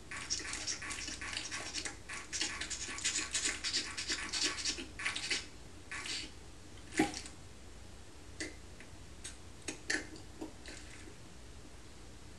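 Cartoon sound effect of a baby suckling at a breast: rapid wet sucking and slurping for about five seconds, then a single loud pop about seven seconds in as the mouth comes off the nipple. A few short mouth clicks and smacks follow.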